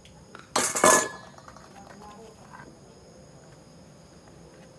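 A metal spoon knocking and scraping against a stainless steel bowl as food is scooped out: two quick clanks a little under a second in, with a brief ring.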